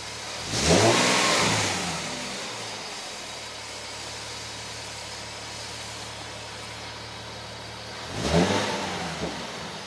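Nissan 370Z's 3.7-litre V6 idling and blipped twice, about half a second in and again near the end, the revs rising quickly and falling back to idle. A faint high whine runs steadily through it, the noise the owner wants diagnosed.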